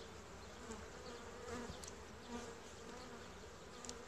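Honeybees of a Buckfast colony buzzing around the opened hive, a faint steady hum, with a couple of small ticks.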